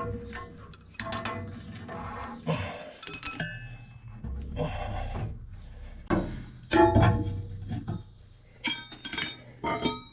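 Irregular metal clinks and clanks of tools working on a Bush Hog rotary cutter's blade assembly, some ringing briefly, with a loud clank about seven seconds in and a quick run of clinks near the end.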